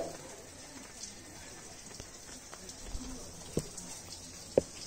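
Quiet street-stall ambience with faint voices, broken by two short, sharp knocks near the end.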